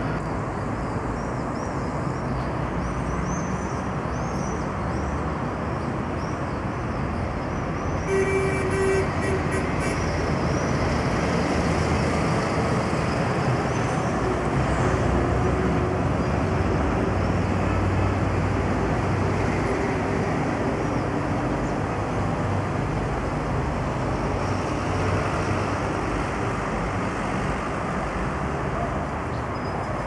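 Steady city road traffic: a continuous wash of vehicle engines and tyres, with a vehicle horn sounding for about two seconds around eight seconds in.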